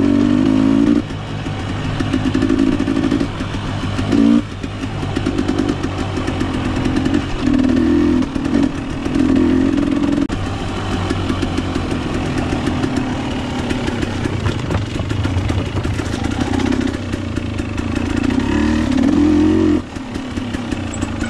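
Dirt bike engine riding a trail, the throttle opening and closing: repeated rises in revs with short drops between, and sharper let-offs about four seconds in and near the end.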